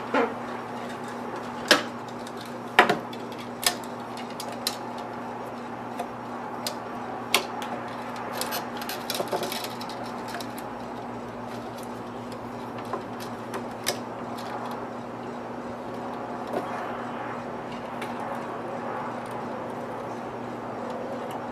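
Scattered sharp clicks and knocks of tools and small metal hardware being handled, loudest in the first few seconds and thinning out later, over a steady low electrical hum.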